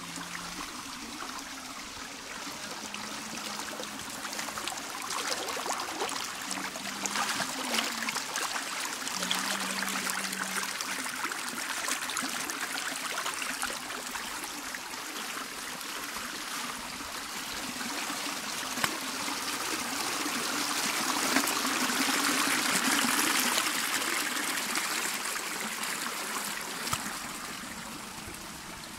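Small rocky stream splashing and trickling over stones in a steady rush of water, which grows louder about twenty seconds in and then eases off.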